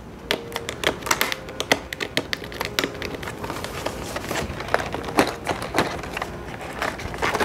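Fingers picking and scratching at the taped end flap of a small cardboard box, making many irregular clicks, taps and crinkles of cardboard and tape.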